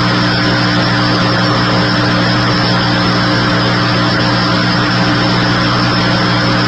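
Steady vehicle engine hum under a constant noise, unchanging throughout.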